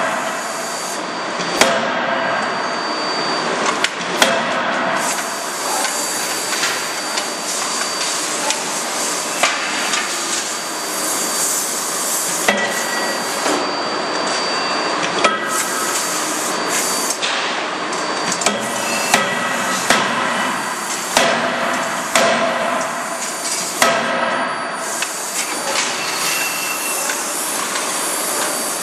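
Hydraulic die forging hammer striking hot steel connecting-rod blanks in its dies: a dozen or more sharp, irregularly spaced blows over steady machine noise.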